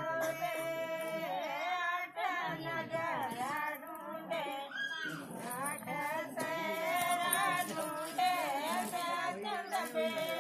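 Women singing a traditional Himachali wedding folk song, their high voices sliding between held notes.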